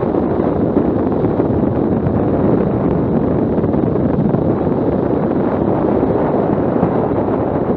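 Steady wind rush on the microphone of a camera riding on a moving motorcycle, mixed with the bike's road and engine noise.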